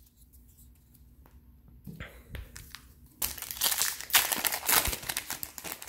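A trading-card booster pack's foil wrapper being crinkled and torn open. It starts about three seconds in as a dense crackling that lasts to the end, after a few light clicks of cards being handled.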